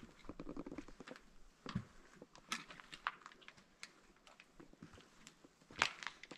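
Footsteps crunching and clicking on loose slate rubble underfoot, at an uneven pace, with the sharpest step near the end.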